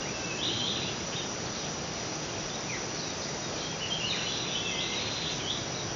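Steady background drone of insects, with short high chirps about half a second in and again from about four to five seconds in.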